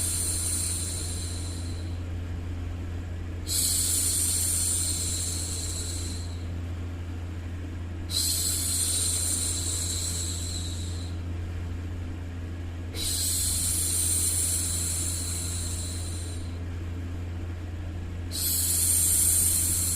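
A woman hushing, drawing out a long 'shhh' about every five seconds, each lasting around three seconds. A steady low hum runs underneath.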